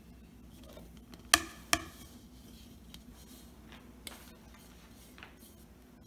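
Two sharp knocks about half a second apart as a mixing bowl is knocked against a granite countertop, turning crumbly sweet pastry dough out onto the counter, then a few faint taps.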